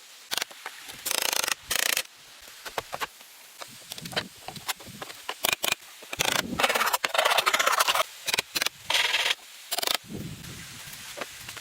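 Irregular rubbing and scraping noises in bursts of varying length, some brief and some lasting a second or more.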